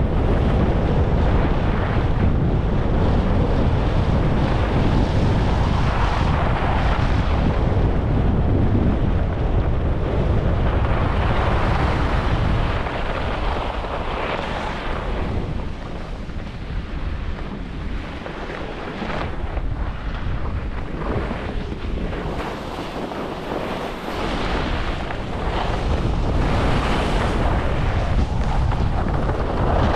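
Wind buffeting a GoPro action camera's microphone during a fast ski descent, with skis hissing and scraping on the piste. The rumble eases for about ten seconds in the middle, then builds again.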